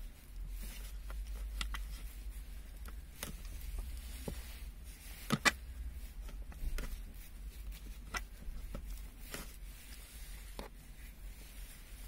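Slime being pressed into and pulled off a car's plastic cup-holder trim, making scattered small sticky clicks and pops over a low steady rumble, with one sharper click about five seconds in.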